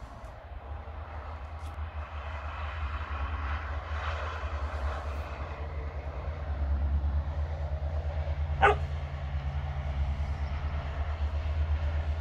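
A black Labrador barks once, briefly, about two-thirds of the way in, over a steady low engine rumble that grows louder.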